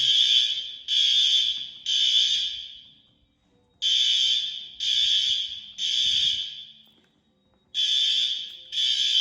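Fire alarm bell ringing in the temporal-3 evacuation pattern: three rings about a second apart, then a short pause, the group repeating about every four seconds. Each ring starts sharply and trails off as the gong rings out.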